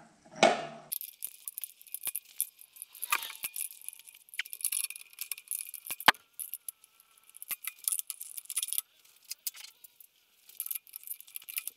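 Small metal parts clicking and clinking as a knurled nut is worked by hand onto the grinding-disc spindle of a bandsaw blade sharpener. There is a brief faint ring now and then, and one sharp click about six seconds in.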